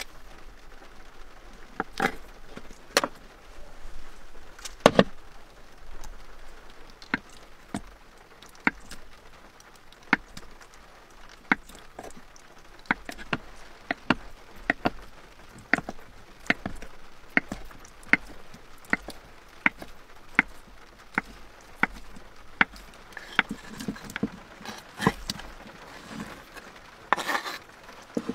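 A long run of sharp single knocks, irregular and roughly one every half second to a second and a half, over a faint steady hiss.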